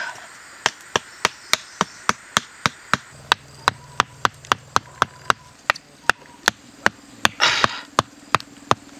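A thick section of green bamboo used as a mallet knocking a thin bamboo stake into packed dirt: a steady run of sharp wooden knocks, about three a second. A brief rustling burst comes about seven and a half seconds in.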